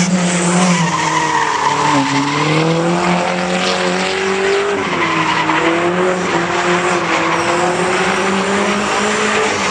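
A car drifting: its engine held at high revs, the pitch dipping and climbing again as the throttle is worked, over the continuous squeal and hiss of the spinning rear tyres.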